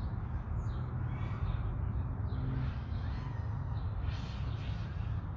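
A few short, harsh bird calls over a steady low outdoor rumble.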